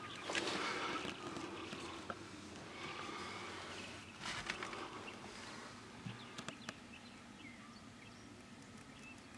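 Light rustling and handling noise with a few sharp clicks. Faint bird chirps come in near the end.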